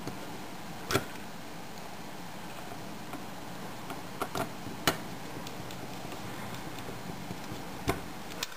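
Small sharp clicks of a precision screwdriver working tiny screws into a Zen Vision:M's circuit board and metal frame, about six at irregular intervals, over a steady background hiss.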